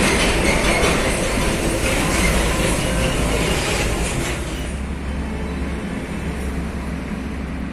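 Empty container skeletal trailer rattling and clanking as a truck tractor unit pulls it away, with motorbike engines passing. About two-thirds of the way in this gives way to a quieter, steady low traffic rumble.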